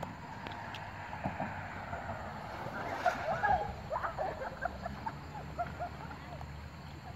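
Water swishing and sloshing as a person wades out through a shallow, muddy river, over a low steady rumble.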